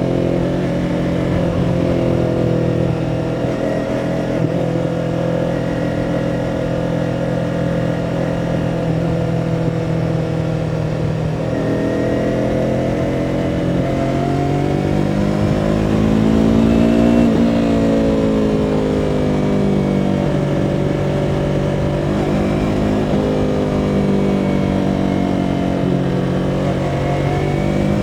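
2017 Yamaha R3's parallel-twin engine running as the bike is ridden: a steady cruising note for the first third, then the pitch climbs as it accelerates, dips sharply at a gear change a little past halfway, and eases back down to a steadier note.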